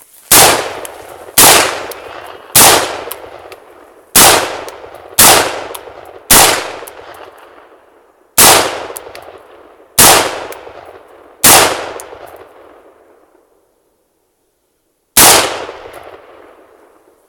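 AR-15 rifle fired ten times in single shots, mostly about a second to a second and a half apart, with a pause of nearly four seconds before the last shot. Each shot is followed by a long echo.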